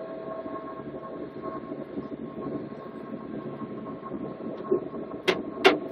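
Pilot boat's engines running steadily under way, heard from inside the wheelhouse as a steady rumble with a faint whine. Two sharp knocks, about half a second apart, near the end.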